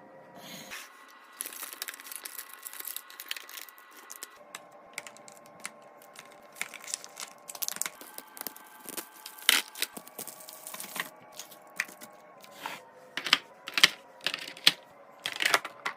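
Plastic packaging crinkling and tearing, with irregular clicks and taps of containers and items being handled and set down.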